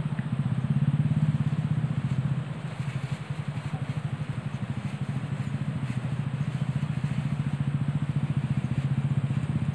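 A small engine running steadily, with a low hum and a fast, even pulse.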